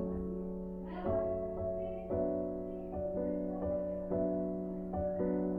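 Soft background music led by piano or keyboard, with sustained notes changing about once a second.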